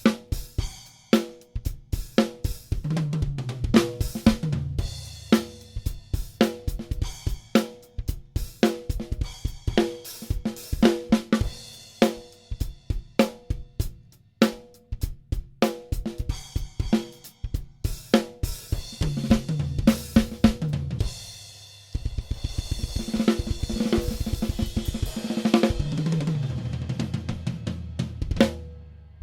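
Acoustic drum kit played in a groove of snare, kick and hi-hat hits, with tom fills that run down from high to low toms several times. Near the end comes a dense stretch of fast hits under ringing cymbals, which stops just before the close.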